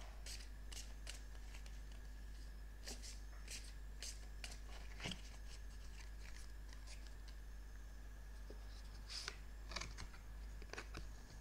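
A deck of oracle cards being shuffled by hand: soft, irregular card flicks and taps, scattered throughout.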